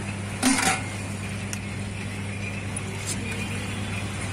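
Metal serving ladle clanking against a stainless steel curry pot, one loud clank about half a second in and a couple of lighter clinks later, over a steady low hum.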